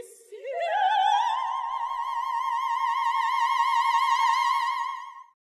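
An operatic soprano voice glides up and holds one long high note with a wide vibrato, then cuts off abruptly a little after five seconds in.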